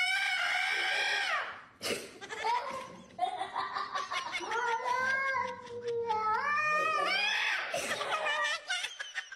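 Domestic cat yowling: a few long, drawn-out calls whose pitch wavers up and down.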